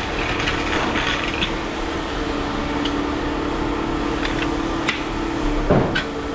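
Scattered light clicks and knocks of tools working on scrap metal, over a steady hum at a constant pitch.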